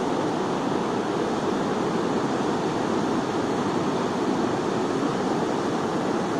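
Ocean surf breaking on a beach, heard as a steady, even rush of noise, mixed with wind.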